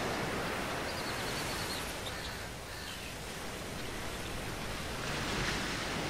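Surf washing onto a beach, a steady rushing that swells near the start and again about five and a half seconds in. A few faint high chirps come in the first two seconds.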